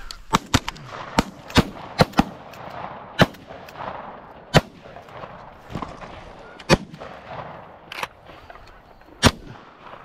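Several hunters firing shotguns at incoming geese: about a dozen shots, irregularly spaced, some in quick pairs, most in the first few seconds and spreading out towards the end.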